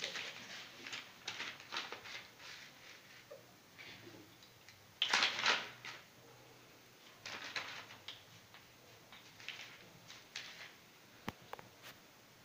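Pug and Old English Sheepdog puppies play-fighting on a tile floor: a run of short scuffling noises, the loudest about five seconds in, with two sharp clicks near the end.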